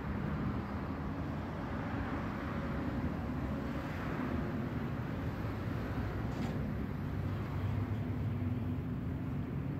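Steady low rumble of street traffic, a city background hum with no clear single event.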